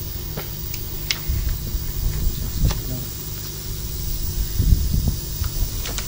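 Light crinkles and ticks of backing paper being handled and peeled as clear protective film is fitted to a bike frame, over a low, uneven rumble that swells twice.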